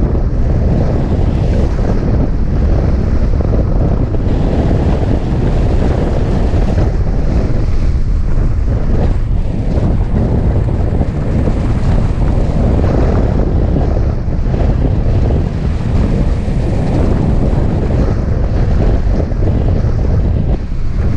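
Wind rushing and buffeting over the microphone of a camera mounted on a hang glider in flight: a loud, steady roar of airflow, mostly a low rumble.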